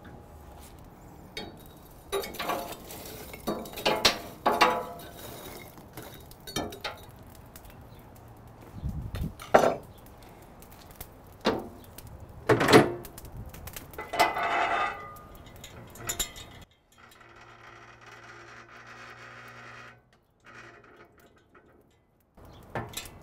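A metal rake scraping and clinking lump charcoal across the steel floor of an Argentine grill's firebox, spreading the burning coals under the cooking grate, in a run of separate scrapes and clinks. Near the end the scraping stops and a faint steady hum follows.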